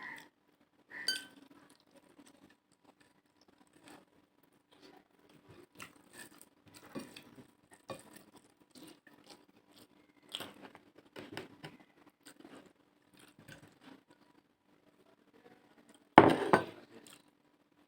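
Close-up eating sounds of curry and rice: scattered small clicks, chewing and light clinks against a plate, with one louder clatter about 16 seconds in. A faint steady hum lies underneath.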